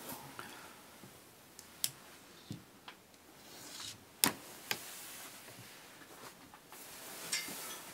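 Scattered light knocks and clicks with a couple of brief rustles, the loudest knock about four seconds in: footsteps and handling noise from a handheld camera moving through a small cabin.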